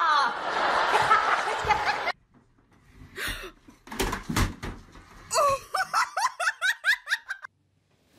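A person laughing hard in a quick run of short repeated bursts in the second half. Before it come a loud, dense noisy stretch of about two seconds and a few knocks.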